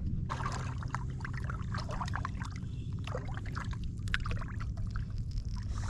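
Water splashing and trickling in many small, irregular splashes and drips, over a steady low rumble.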